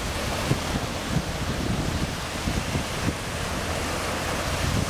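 Wind buffeting the microphone over the steady wash of surf on a beach.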